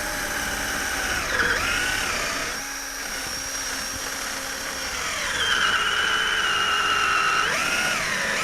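Electric drill running as it drills out the rubber bushing of a front stabilizer (anti-roll) bar, its motor whine shifting up and down in pitch several times.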